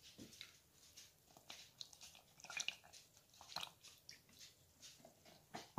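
Faint crackling and ticking of a plastic buttermilk jug being handled and tipped to pour into a bowl of cornmeal mix, loudest a little past halfway.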